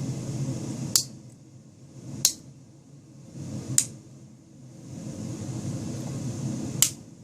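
Four sharp metallic clicks, unevenly spaced, from a Victorinox Cadet pocket knife's tools snapping into place against their backsprings. Under them runs a steady low background hum that fades for a few seconds in the middle.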